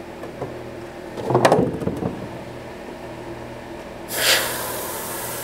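A short clatter of a plastic body and tools being handled about a second in, then about four seconds in an airbrush sprays a hissing burst of air and paint that holds for over a second and cuts off sharply. A steady low hum runs underneath.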